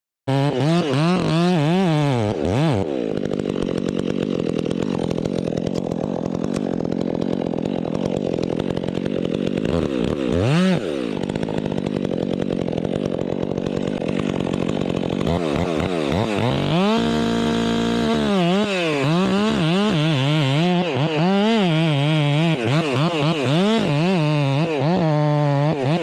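Two-stroke chainsaw running and cutting wood, its engine pitch rising and falling again and again as the throttle is worked and the chain loads in the cut. The sound cuts in suddenly at the start.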